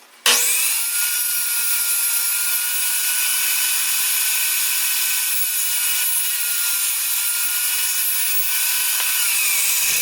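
Woodworking power tool running steadily while cutting wood, with a steady whine over cutting noise. It starts abruptly, and the whine drops slightly near the end.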